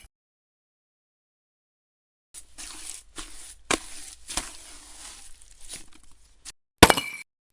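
Silence, then about four seconds of wet, scraping, squishing noise like cement being mixed or spread, with a few sharper scrapes. Near the end comes one sharp hard clink that rings briefly, like a mini brick set down.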